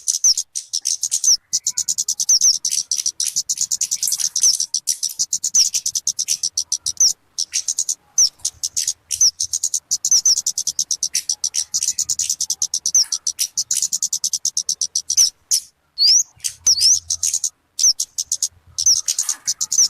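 Talokan (kemade) bird singing: a fast, unbroken stream of high chirps and clicking notes with short pauses here and there, a recording of the kind used for luring or training songbirds.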